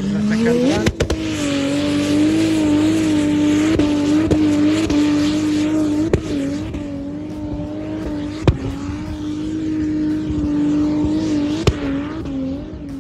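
A full-size 4x4 SUV engine revs up over the first second and is then held at high revs, wavering slightly, as the vehicle powers up a steep sand dune, over a steady hiss. A few sharp cracks cut through, the loudest about two-thirds of the way in.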